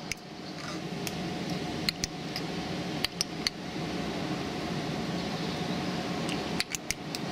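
Steady mechanical hum of urban machinery, a fan-like drone with a low tone in it. Sharp clicks sound a few times, with three in quick succession near the end.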